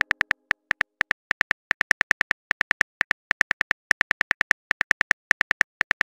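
Simulated phone keyboard typing sound: a fast, uneven run of short pitched clicks, about seven a second, one for each letter typed into a text message.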